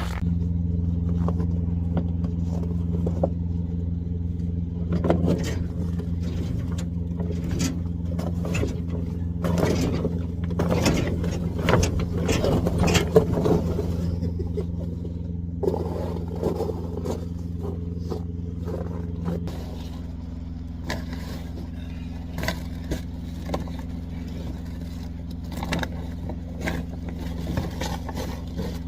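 Engine idling steadily throughout, getting quieter about two-thirds of the way in, while stiff frozen tarps crackle, scrape and thump as they are handled and folded, most busily in the first half.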